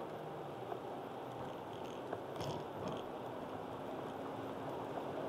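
Cabin noise of a Honda Accord Type-S Wagon under hard acceleration on a wet track: a steady engine drone under the hiss of tyres on wet tarmac, with a couple of faint ticks about halfway.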